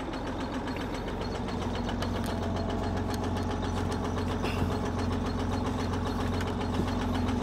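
Semi truck's diesel engine idling steadily after being jump-started out of long abandonment.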